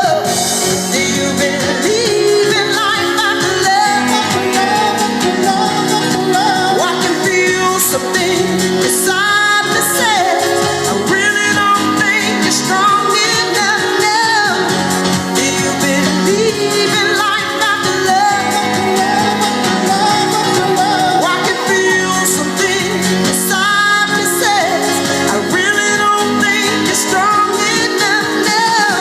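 A song with a singing voice over steady instrumental accompaniment.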